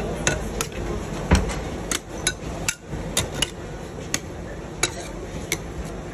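Metal spatulas tapping and clinking against the stainless steel pan of a rolled ice cream cold plate: about a dozen sharp metallic taps at uneven intervals, with one heavier knock about a second and a half in.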